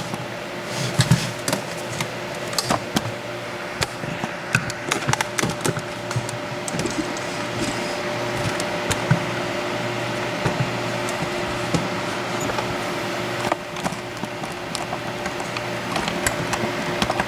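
Handling noise: scattered light clicks and knocks of small objects and tools being moved on a work surface, over a steady background hum. There is one stronger knock near the end.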